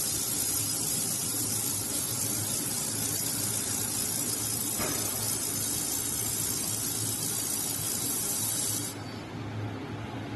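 Handheld fiber laser welder running a weld on steel: a steady high hiss that cuts off sharply about nine seconds in when the welding stops. A low steady hum lies underneath throughout.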